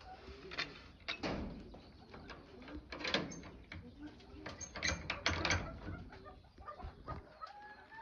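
Birds calling briefly in an aviary, with a few short high chirps. Under them runs a series of irregular scuffs and rustles, the loudest about three and five seconds in.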